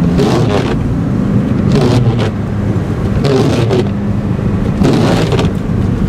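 Honda car driving on a snowy road, heard from inside the cabin: a steady engine and tyre hum, with the windshield wipers scraping across the glass in a swish about every second and a half.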